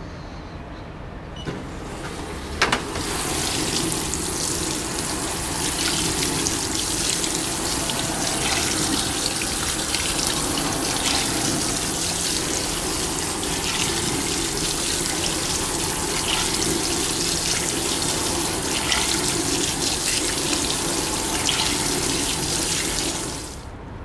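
Fisher & Paykel WA8560G1 top-loading washing machine filling. A click sounds about two and a half seconds in, then water sprays steadily into the tub onto the clothes for about twenty seconds and stops shortly before the end.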